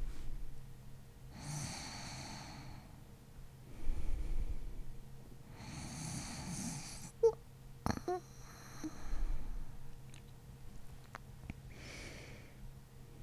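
A woman's slow, deep breathing in sleep with light snoring, a long breath every few seconds. A few small mouth clicks come about halfway through.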